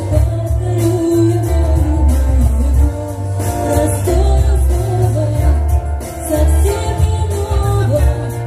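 A woman singing karaoke into a handheld microphone over a pop backing track with a pulsing bass line, loud and amplified.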